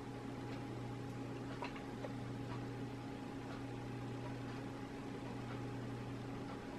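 N gauge model train running slowly on the track: a faint, steady hum with light ticks about twice a second.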